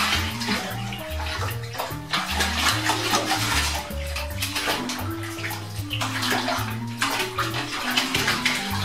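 Bathwater sloshing and splashing in surges as a cat paddles in a half-filled bathtub and scrambles at the rim, over background music.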